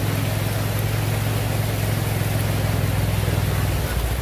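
A vehicle engine running steadily as a low hum, with road and wind noise over it. The hum drops away just before the end.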